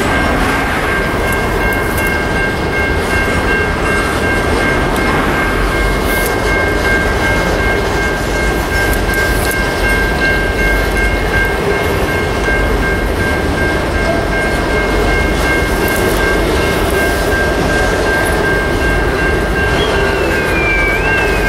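Grain hopper wagons of a broad-gauge freight train rolling past, a steady loud rumble of wheels on rail. Two steady high-pitched tones ring over it throughout, and near the end a short high tone rises and falls several times in a row.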